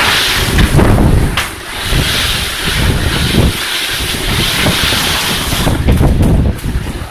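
Strong typhoon wind gusting and buffeting the microphone, a rough low rumble under a steady hiss, easing a little near the end.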